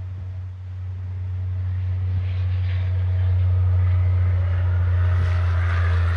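Diesel fuel being poured from a small container into a new fuel filter housing to pre-fill it, a rising splashing wash from about two seconds in, over a steady low hum.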